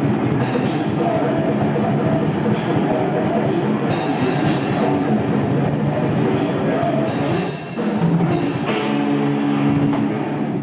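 Heavy metal band playing live: drum kit and guitars, loud and dense, with a brief drop in the sound about three quarters of the way through.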